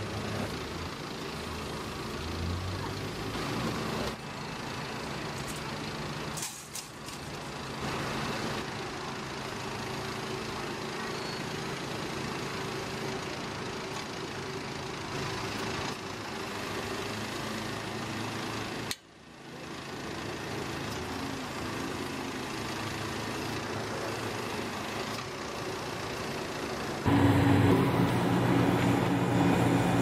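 Truck-mounted manhole cutting rig running: steady engine and hydraulic machinery noise, broken by a few abrupt cuts. About three seconds before the end it gives way to the louder, steady engine hum of a slipform concrete paving machine.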